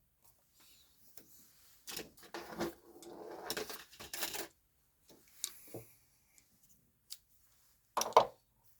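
Handling noises: scattered clicks and scraping of tools or fittings being moved about, with a short rustling stretch a couple of seconds in and two sharp knocks near the end.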